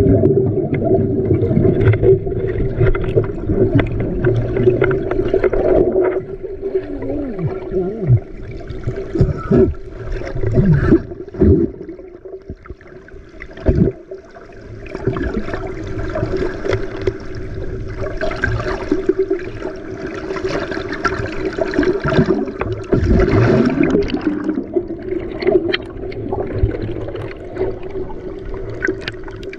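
Water sloshing and gurgling over a steady motor hum, with several short downward-gliding sounds.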